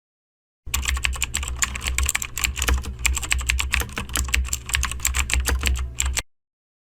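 Fast typing on a computer keyboard: a dense, uneven run of key clicks over a steady low hum, starting under a second in and cutting off abruptly near the end.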